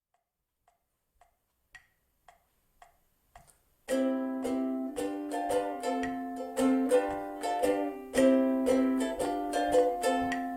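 A few faint ticks about two a second, then a ukulele strummed in a steady rhythm, starting loudly about four seconds in.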